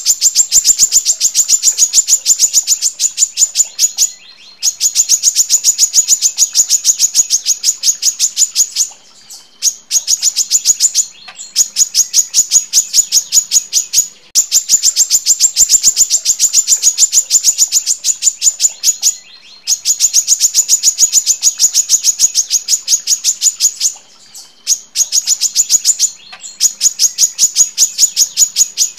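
Female brown-throated sunbird (kolibri kelapa) calling in long, dense runs of fast, sharp, high chirps, broken now and then by short pauses.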